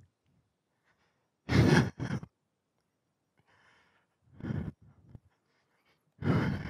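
Three heavy breaths out close to the microphone, about two seconds apart, the first the loudest, with near silence between.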